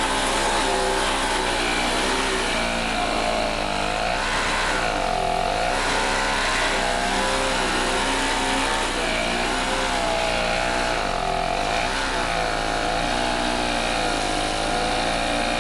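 Snowblower engine running under heavy load, its pitch dipping and recovering several times as it bogs down in about a foot of snow.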